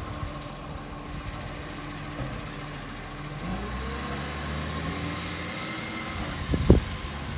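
Garbage truck's diesel engine running as it drives off, its engine note rising about halfway through as it speeds up. A short sharp knock near the end is the loudest sound.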